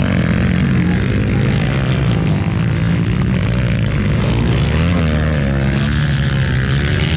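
Motocross dirt bike engines revving hard as riders power through a corner, the pitch rising and falling again and again with throttle and gear changes, more than one bike running at once.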